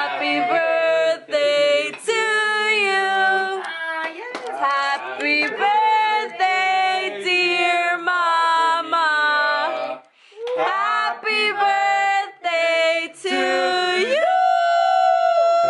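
Several female voices singing a birthday song together without accompaniment, ending on a long held note near the end.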